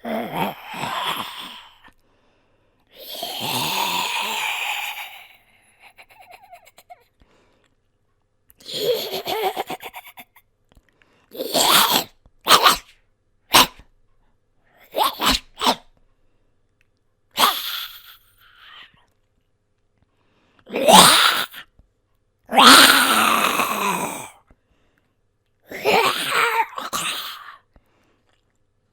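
A person's voice performing zombie growls and grunts, about ten separate ones with pauses between. Some are drawn out for a couple of seconds, and a run of short, sharp grunts comes in the middle.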